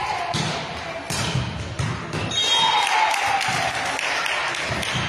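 A volleyball struck a few times during a rally, then girls' shouts and cheers in a sports hall as the point is won.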